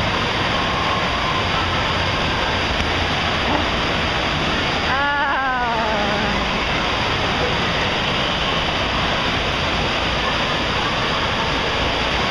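Steady rushing water noise of an indoor pool hall. A single voice calls out briefly about five seconds in, falling in pitch.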